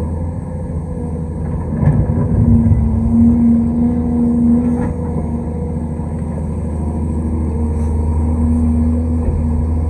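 Large excavator's diesel engine running steadily. About two seconds in, it loads up and grows louder with a stronger hum for a couple of seconds, then settles back.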